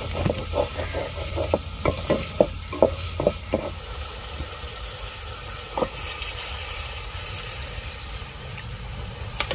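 A wooden spatula scrapes and knocks against a steel pan, stirring onions frying in hot oil over a steady sizzle. There are about three strokes a second for the first few seconds, then a single stroke near the middle.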